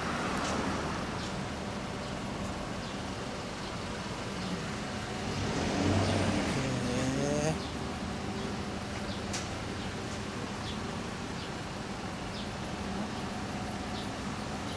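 A road vehicle passing and accelerating, its engine pitch rising for about two seconds from about six seconds in, over steady street traffic noise.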